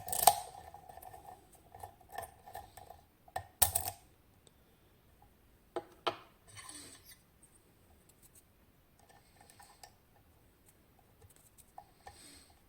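Metal lockpicking tools and a TESA T80 lock being handled as picking begins: three sharp metallic clicks, near the start, at about four seconds and at six seconds, the first two with a brief ring, between faint small clicks and scrapes.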